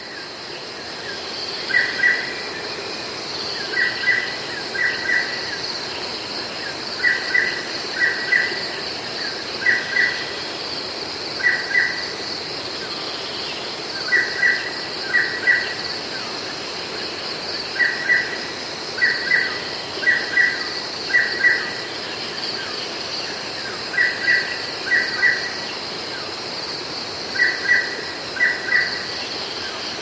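Tropical rainforest ambience: cicadas keep up a steady, high-pitched drone, while a bird repeats a short double-note call every second or two over the top.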